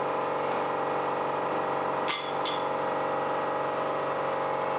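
Steady machine hum in a workshop, with two sharp clicks about half a second apart a little past two seconds in, as of hand tools at work.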